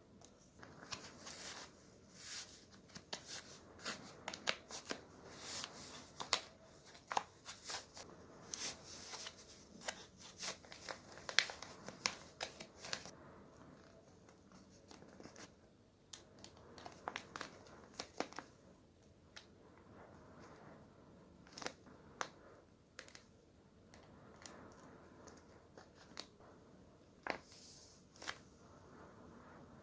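Paper crinkling and rustling under the hands, with short sharp snips and taps in an irregular run: busy over roughly the first half, then sparser.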